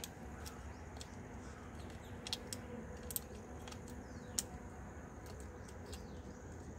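A few sharp clicks and snips as a small foil pheromone-lure packet is cut open and handled, the loudest about two, three and four seconds in. Faint bird chirps sound behind it.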